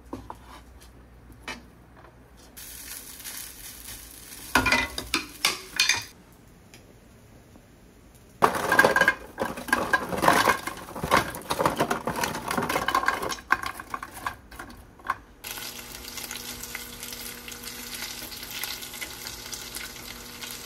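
Home cooking in a frying pan: utensils stirring and knocking against the pan, with a stretch of loud irregular clattering in the middle, then steady sizzling of food frying in oil near the end.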